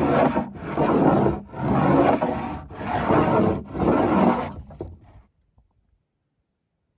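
A small hand scraper dragged hard over an old builder's timber plank, scraping the dirty top surface off in long strokes of about a second each, about five in a row. The strokes stop about five seconds in.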